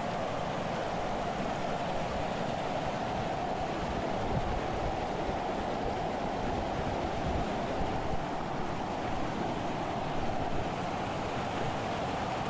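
Mountain creek rushing and splashing over rocks: a steady whitewater rush.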